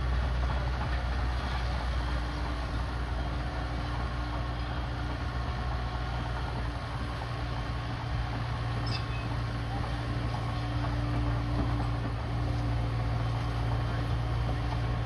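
Cat crawler dozer's diesel engine running with a steady low drone as the dozer pushes dirt with its blade.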